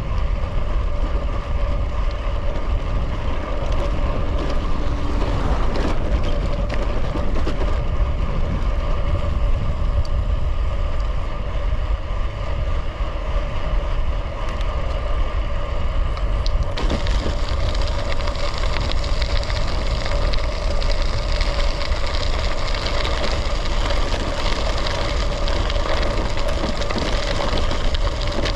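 Wind buffeting the microphone of a camera on a moving gravel bike, a heavy steady rumble with the steady hum of tyres rolling on the road beneath it. About seventeen seconds in, the hiss turns brighter.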